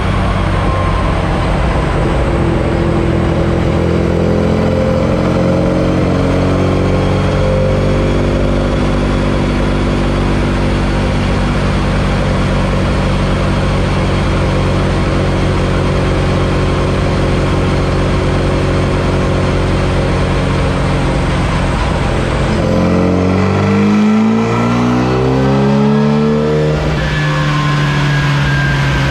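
Swiftune 1380 cc race-tuned Classic Mini A-series engine with a Weber 45 DCOE carburettor running under load on a rolling road dyno, its revs climbing slowly and steadily for about twenty seconds in a power run. Near the end the revs drop, then rise again in quicker sweeps.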